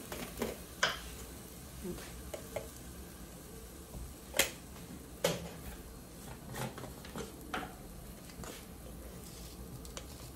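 Scattered sharp clicks and knocks of a spice jar and spoon being handled, about half a dozen, the loudest about four and a half seconds in, over a faint sizzle from rice frying in oil in the pot.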